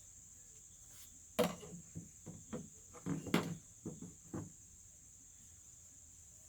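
A bucket being handled and tipped into a wheelbarrow: a run of knocks and thuds for about three seconds as its contents are dumped out. Crickets chirp steadily in the background.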